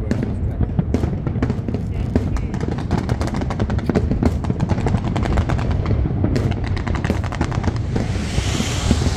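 Fireworks going off in a dense, rapid string of bangs and pops, with a crackling hiss coming in near the end.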